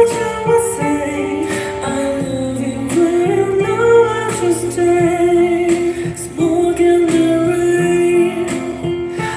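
A recorded song playing back: a sung melody over guitar accompaniment, a demo guide track.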